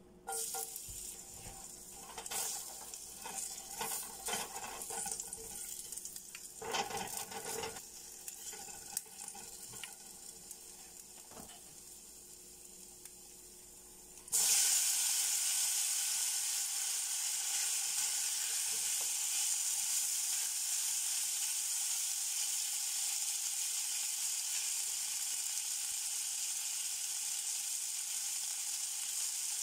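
Light, intermittent crackling in a hot oiled Kobach fry pan, then about halfway through a sudden loud, steady sizzle as marinated beef strips are tipped into the pan and stirred with a spatula.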